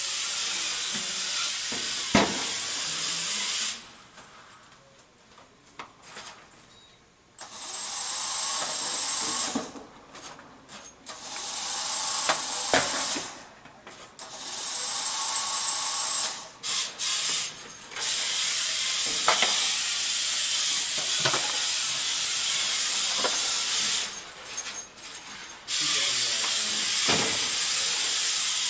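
Small competition robot's electric motors whirring in stop-start runs of a few seconds as it is driven around the field, with a couple of sharp clunks.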